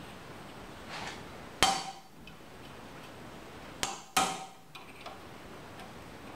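Hammer striking a steel punch to drive a stuck rivet stub out of a sickle-bar knife strip: a faint tap about a second in, then sharp metallic strikes with a short ring, one at about a second and a half and two close together around four seconds. The rivet piece is stubborn and does not come free.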